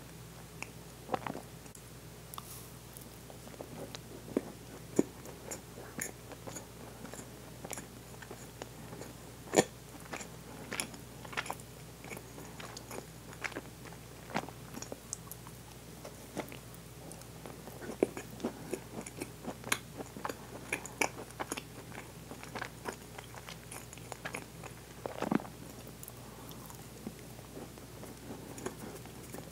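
Close-miked chewing of a soft cream-topped sponge cake: moist mouth smacks and sharp clicks at irregular intervals, picked up by a clip-on microphone at the collar.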